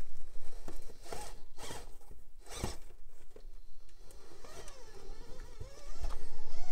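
Traxxas TRX4M micro crawler's electric motor and geared drivetrain whining as it creeps down a rock decline, with a few short rasping bursts in the first half. In the second half the whine wavers up and down in pitch with the throttle and grows louder near the end.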